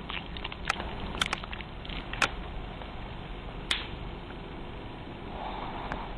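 Pekingese dog snoring in its sleep: a raspy snore breath near the end, over a steady hiss, with a few sharp clicks in the first half.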